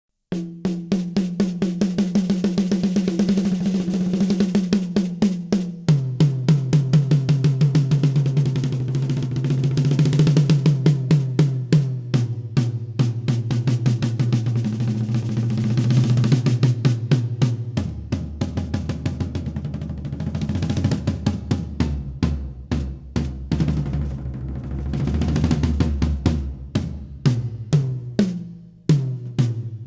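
Drum kit toms fitted with Williams double-ply clear oil Target Dot heads, which have an overtone-damping layer between the plies, struck in fast even strokes. The pitch steps down several times, from the smallest tom to the deepest floor tom, then the playing turns to a looser fill near the end.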